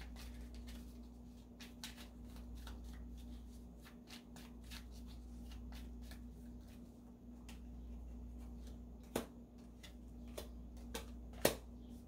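A tarot deck being shuffled by hand: a faint, irregular run of card clicks, with two sharper clicks near the end.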